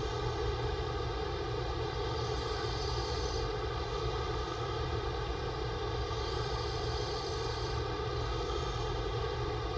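A man snoring through an open mouth, his breaths swelling and fading slowly every few seconds over a steady droning hum.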